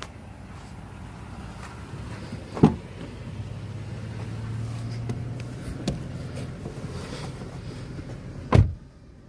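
Pickup truck rear door unlatched with a sharp click about two and a half seconds in, then pulled shut with a loud thud near the end, after which the outside sound turns muffled. A low steady hum runs in between.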